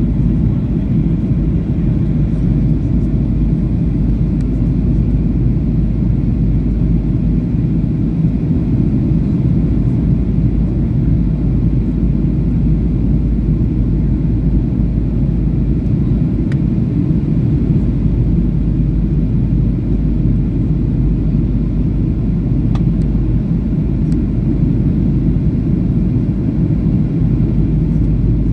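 Cabin noise of a Boeing 737-800 in flight: the steady, low roar of its jet engines and the airflow over the fuselage, unchanging throughout.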